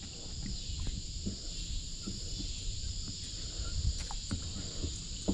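A steady, high-pitched insect chorus outdoors, over a low rumble, with a few light knocks.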